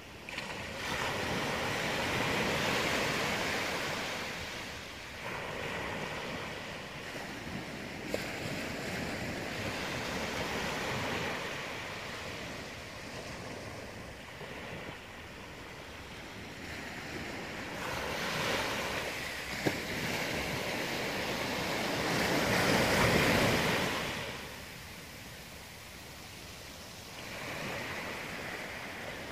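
Small ocean waves breaking and washing up a sandy beach, the surf swelling and fading in slow surges. The loudest surge comes about three-quarters of the way through.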